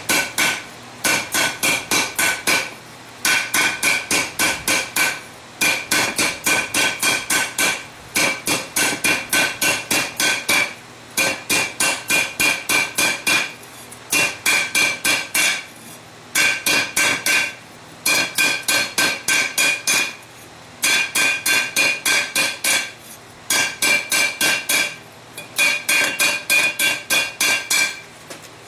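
A hand hammer strikes the hot rim of a bell forged from a steel cylinder tank over the anvil horn, flaring the rim outward. The blows come fast, about five a second, in runs of eight to ten with short pauses between runs, and each strike gives a ringing metallic clang.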